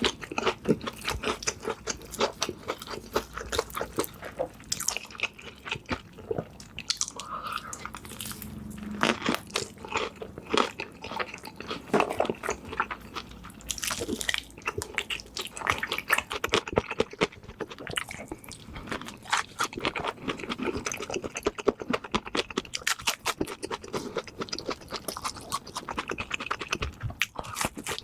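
Close-miked chewing and crunching of food: a steady run of irregular wet clicks and crackles from biting and chewing.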